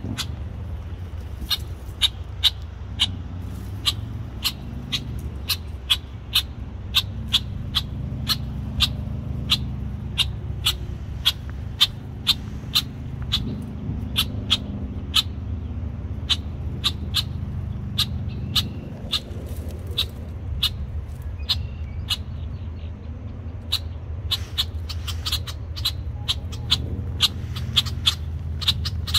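Male red-winged blackbird giving short, sharp alarm calls over and over, about two a second, defending its nesting area. A low steady rumble runs underneath.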